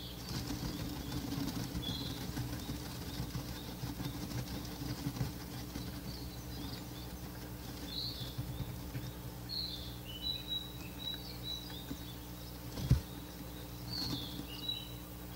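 Ural owl chicks in a nest box calling with short, high, wheezy notes scattered throughout: the chick call known as 'supigoro', said to imitate the parents' 'goro-suke-hoho' hoot. A single sharp knock late on, over a steady low hum.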